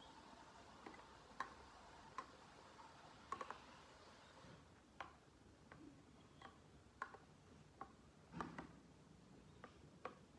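Spoon clicking and scraping against a steel bowl while mango is mashed with milk: faint, irregular light clicks, a dozen or so, the loudest a little after eight seconds in.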